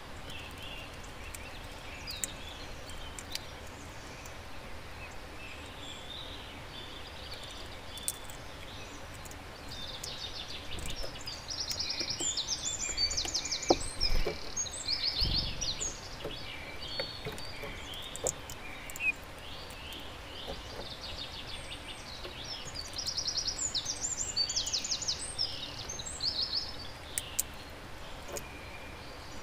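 Wild songbirds singing and calling against a steady outdoor background hiss, with two stretches of fast trilled song, one near the middle and one toward the end. A low thump or two comes about halfway through.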